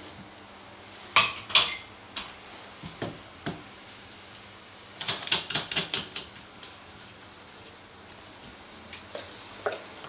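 Hard clicks and knocks of a sharpening stone and its holder being handled on a countertop: a few single knocks, a quick run of clicks about halfway through, and two more near the end.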